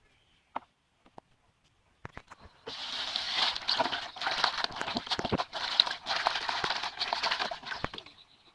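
A few scattered clicks, then food frying in hot oil starts sizzling about a third of the way in, a dense crackling hiss full of sharp pops that cuts off suddenly near the end.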